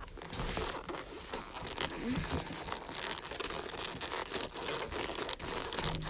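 Padded boxing gloves rustling and crinkling as they rub against each other and grip a Rubik's cube. Irregular small clicks and knocks come from the cube being handled.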